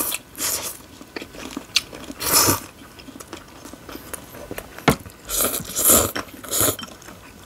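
Close-up eating sounds: several loud slurps of noodles, with chewing and a few sharp clicks and crunches in between.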